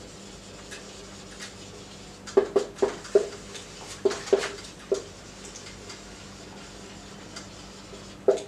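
Marker pen writing on a whiteboard: short, quick squeaks and taps of the tip in two clusters of strokes, about two and a half and four seconds in, with a few fainter strokes later.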